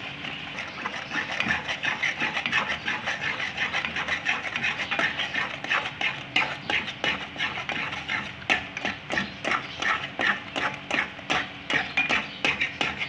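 Metal spatula scraping and knocking against a pan in quick, repeated strokes while eggs are scrambled, over a steady frying sizzle.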